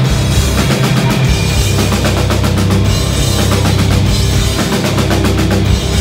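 Rock band playing loud and live, with fast drumming and cymbals driving the music as heard from the crowd.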